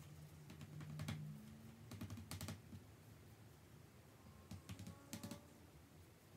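Faint clusters of light clicks and taps as the paint-dipped straight edge of a torn scrap of paper is pressed and dabbed onto watercolour paper to print thin lines. The taps come in three short bunches: about a second in, around two and a half seconds, and near five seconds.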